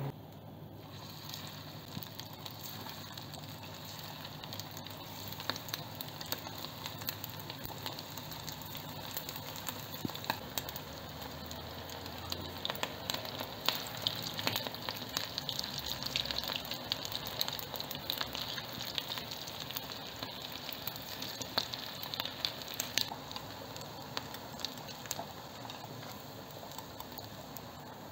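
Rice-pilaf patties shallow-frying in hot oil in a nonstick frying pan: a steady sizzle with frequent spitting crackles, busiest midway through while the pan is full.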